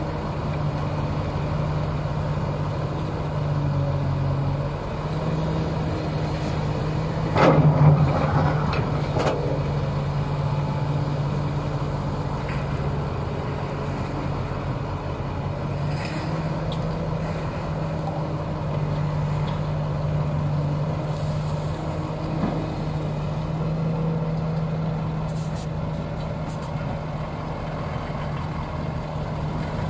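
Diesel engines of a Komatsu PC330 excavator and a Kamaz dump truck running steadily while the excavator loads spoil into the truck. One loud burst about seven and a half seconds in comes as a bucketload lands in the steel tipper body.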